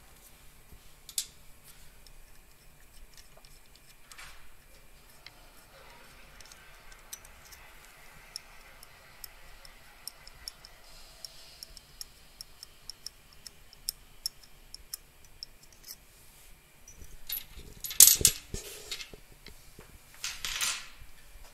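Faint, scattered metallic ticks and clicks as the two screws on a steel direct shear box are turned out by fingers. The screws are being backed off so the box halves can shear freely. Near the end come a few louder knocks and rustling from handling.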